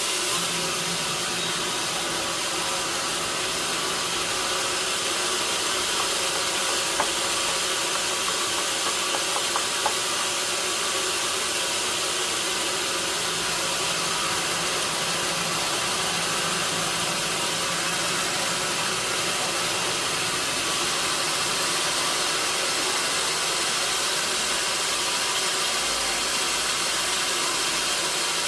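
Sawmill machinery running steadily: an engine-driven log saw with a constant hum and a hissing noise, and a few light knocks about seven to ten seconds in.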